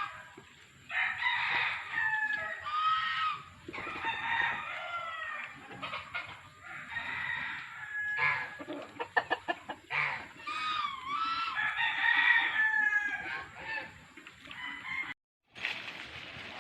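A flock of chickens, young Rhode Island Reds and Barred Plymouth Rocks among laying hens, clucking and crowing over and over while foraging in grass. A quick run of clicks comes about nine seconds in, and the sound cuts out for a moment near the end.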